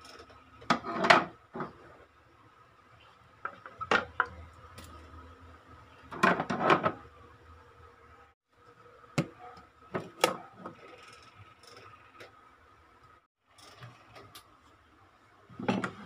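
Kitchenware being set down and moved on a wooden cabinet shelf: knocks and clatter of metal pans, a mesh strainer and a plastic-and-wire pot-lid rack against the wood, in about five separate bursts.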